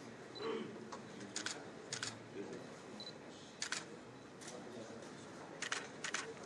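Camera shutters clicking in quick pairs and triplets, several times over a faint room murmur.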